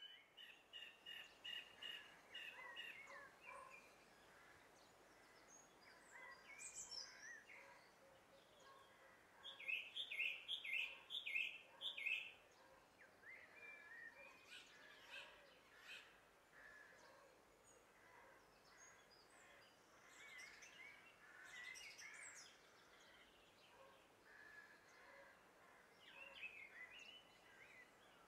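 Songbirds singing faintly, a series of short repeated chirping notes and twitters, with the loudest run of about half a dozen quick notes about ten seconds in.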